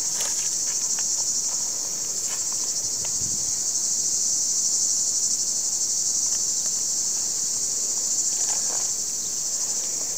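A dense, steady chorus of insects shrilling: one continuous high-pitched buzz with a fine pulsing texture, with a few faint knocks underneath.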